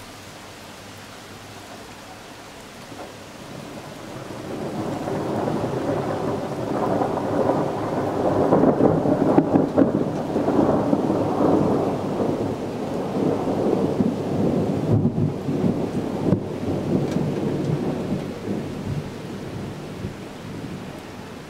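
A long roll of thunder over steady rain: the rumble builds about four seconds in, is loudest around the middle, and dies away near the end, with the rain's hiss underneath throughout.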